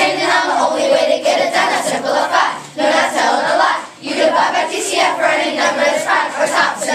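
A group of children rapping and chanting the lyrics together over a backing track, with a brief break a little before four seconds in.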